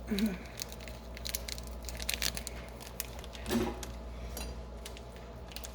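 Light crinkling and scattered clicks as a small seasoning packet is handled, opened and emptied.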